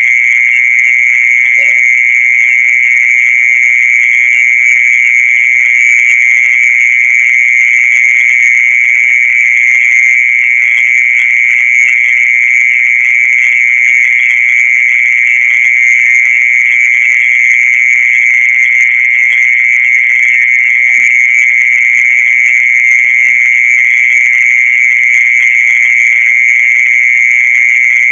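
Mole cricket's continuous high-pitched trill: one steady, unbroken buzzing tone that holds at the same pitch and loudness throughout. This is the night sound popularly credited to earthworms.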